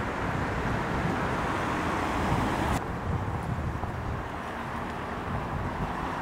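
Outdoor street ambience: steady traffic noise with wind on the microphone. About three seconds in it changes abruptly to a slightly quieter, duller ambience.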